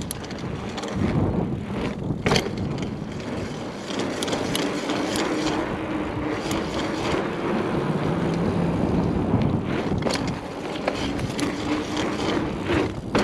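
Hyper Explorer mountain bike being test-ridden: tyres rolling and drivetrain running, with scattered clicks, a check of whether the freshly serviced Shimano BB-52 Hollowtech bottom bracket still makes noise.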